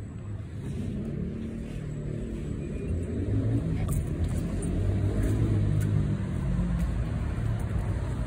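Low rumble of a motor vehicle engine, growing louder over the first few seconds and then holding steady.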